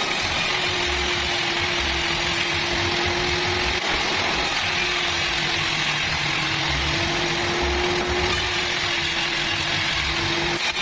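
Sawmill saw machinery running steadily: a constant hum over a loud, even hiss, with a brief break about four seconds in.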